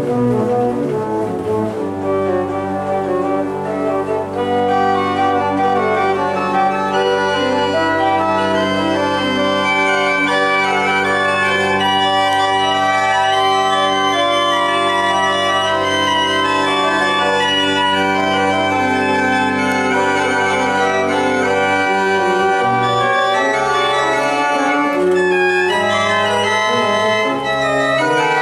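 Church organ playing slow, sustained chords over a held pedal bass; the upper voices thicken a few seconds in, and near the end the bass starts moving in shorter notes.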